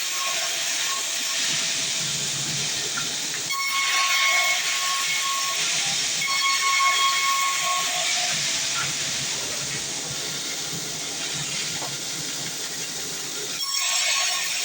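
Sawmill bandsaw blade cutting through a heavy, dense log: a steady, loud hiss of the cut with a thin whine that comes and goes.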